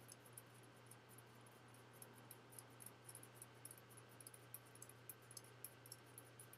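Near silence: quiet room tone with a steady low hum and faint, rapid, irregular high ticking.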